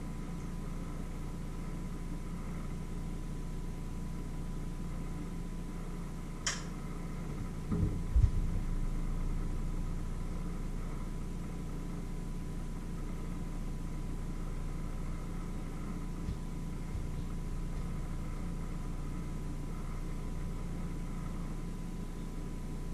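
Steady low hum with a faint constant tone, broken by one sharp click about six seconds in and a few dull knocks, the loudest sounds, around eight seconds.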